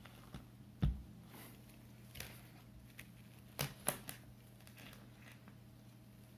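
Handling noise: scattered light clicks and taps over a low steady hum, with a soft thump just under a second in and two sharper clicks a little past halfway.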